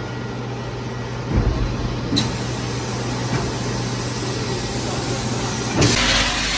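Green sand flaskless molding machine running with a steady low hum while the finished sand mold is pushed out, with two short knocks in the first half. Near the end the sound cuts abruptly to a louder hiss.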